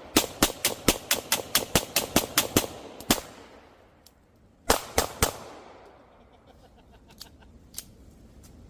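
Firearms fired in rapid succession: a quick string of about a dozen shots at roughly five a second, then a single shot, then about a second and a half later three more shots. A few faint pops follow near the end.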